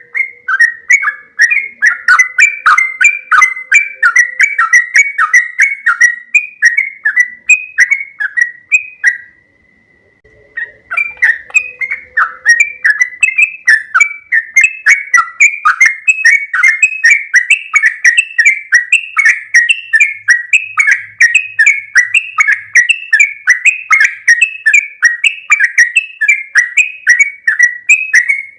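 Yellow-vented bulbul (trucuk) singing a long, rapid run of short chirping notes, about three a second, breaking off briefly about nine seconds in and then resuming.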